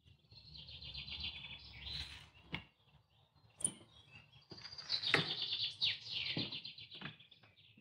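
High, rapid bird-like chirping trills in two long phrases, with a few sharp knocks in between.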